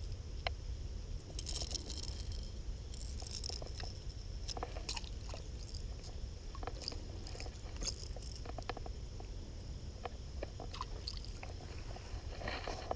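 Irregular small clicks and short crunchy scrapes, thicker about two and three seconds in, over a steady low rumble.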